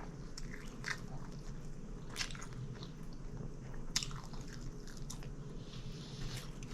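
A person chewing a mouthful of sub sandwich close to the microphone, with short wet mouth clicks now and then, the sharpest about four seconds in.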